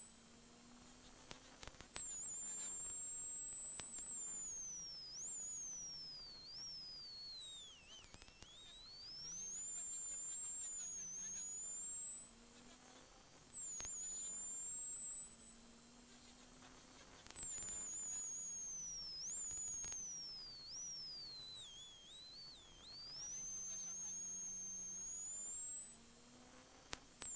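Peugeot 106 XSI rally car engine heard from inside the cabin, pulling hard through the gears: the revs climb and drop sharply at each upshift, with a high whine rising and falling along with them. Twice the car eases off, about a quarter of the way in and again about three-quarters through; the revs fall, then build again.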